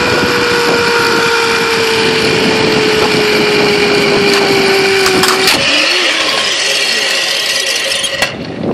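Zipline trolley pulleys running along the steel cable with wind rushing past: a loud whir with a steady tone that slowly falls in pitch as the rider slows, stopping about five and a half seconds in. The rushing noise goes on and cuts off suddenly near the end as the trolley arrives at the landing.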